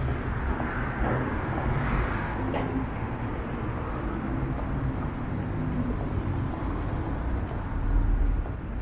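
City street ambience with the steady rumble of road traffic, swelling louder near the end. A faint thin high whine runs for a couple of seconds midway.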